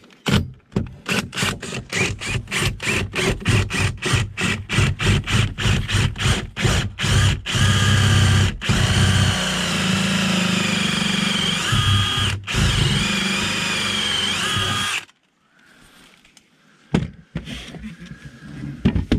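Cordless drill driving a hole saw up into a wooden wall top plate: first in short rapid trigger pulses, about three a second, then running steadily for about seven seconds with two brief stops, then cutting off suddenly, followed by a few faint knocks.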